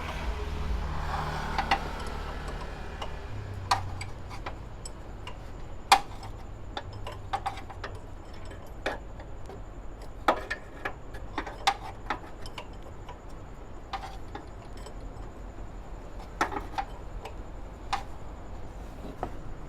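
Scattered sharp metallic clicks and clinks of hand tools on the car's bolts, irregularly spaced, some ringing briefly, with a low steady hum in the first few seconds.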